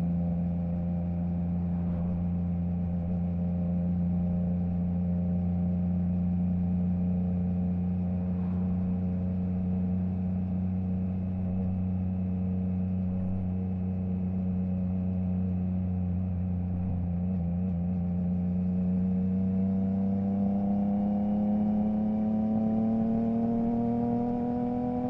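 Triumph Trident 660's inline three-cylinder engine through a Zard stainless full exhaust with the baffle removed, holding a steady engine speed, its pitch climbing gradually over the last few seconds.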